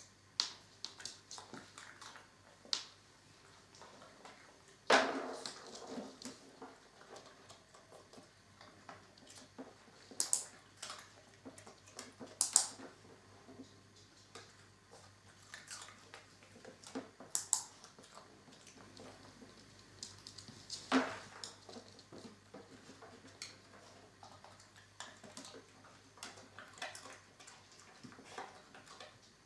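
Scattered light clicks and taps, with a few louder knocks, from dog treats dropped into a plastic pet carrier and the small dog moving about inside it.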